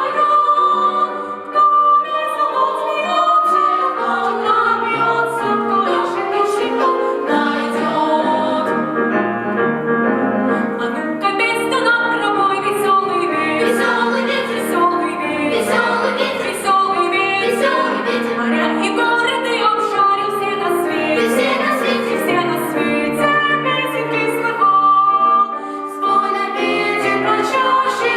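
Children's choir singing a song, the voices going on without a break.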